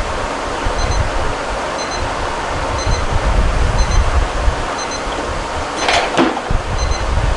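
Steady rushing noise with faint double beeps about once a second. About six seconds in, a loaded 130 kg barbell clanks as it is pulled from the floor and caught at the shoulders in a clean, the plates and bar rattling.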